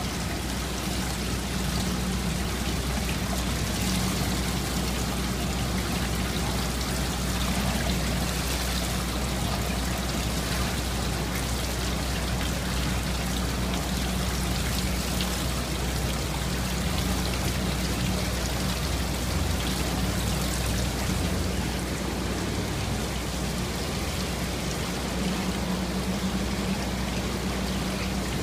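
Water splashing and trickling steadily from the many outlets of a Matec filter press's plate stack as filtrate discharges during a press cycle, over a steady low hum.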